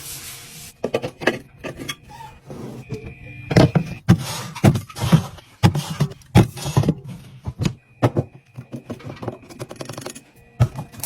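Containers and packaged food being handled and set down while a fridge is restocked: a quick irregular run of knocks, clicks and clinks, with stretches of rustling.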